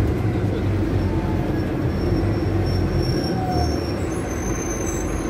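Scania K250UB city bus with a Scania OC09 engine, heard from inside the cabin while driving: a steady low engine drone under road rumble that eases off a little in the second half. Faint high-pitched whines come and go over the rumble.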